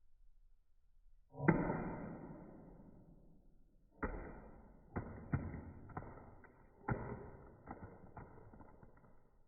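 Flip phone dropped from head height onto a hard surface: one sharp hit about a second and a half in, then a run of rattling knocks starting about four seconds in, each dying away quickly.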